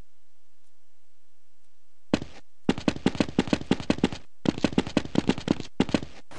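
Fight-animation sound effects: after a faint steady hiss, a rapid string of sharp cracks starts about two seconds in, about eight a second, in several bursts broken by short gaps.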